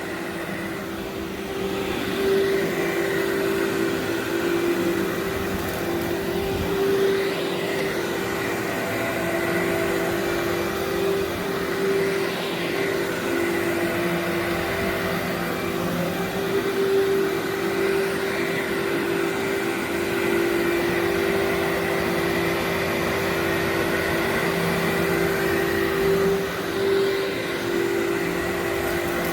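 Workhorse vacuum cleaner running steadily on berber carpet, a constant motor hum and airflow rush that swells and dips slightly as it is pushed back and forth.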